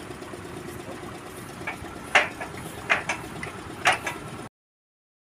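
Manual sondir (Dutch cone penetrometer) rig being hand-cranked: sharp metal clanks, three loud ones between about two and four seconds in, over a steady low hum. The sound cuts off suddenly about four and a half seconds in.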